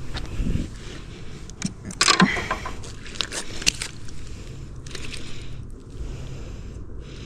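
Scraping, crunching and clicking handling noises, loudest in a cluster about two seconds in, over a low steady background rumble.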